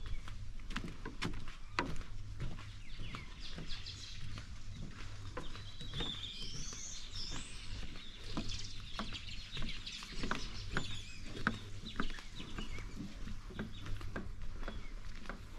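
Birds chirping and calling with high, gliding notes, busiest in the middle, over irregular footsteps knocking on a wooden footbridge and a low steady hum.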